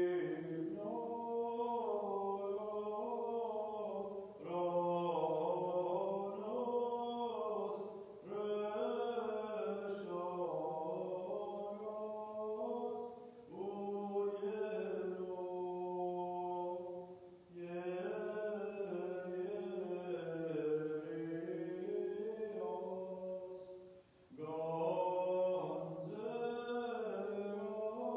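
A male voice chanting an unaccompanied Armenian liturgical hymn in long, slowly moving melodic phrases, with brief pauses for breath about every four to six seconds.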